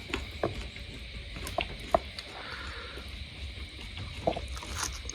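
Scattered short clicks and smacks of someone eating fried eel, over a steady background hiss.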